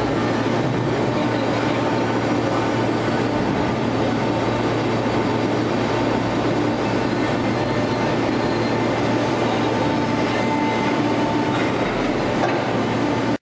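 Industrial pre-compression lid baler running: a steady mechanical clatter over a constant low hum, cutting off abruptly at the end.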